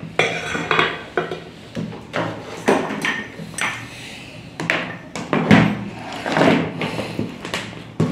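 Irregular clicks, knocks and rattles of wires, tools and parts being handled on a hard workbench while AC input leads are connected to an SMPS circuit board, over a faint low steady hum.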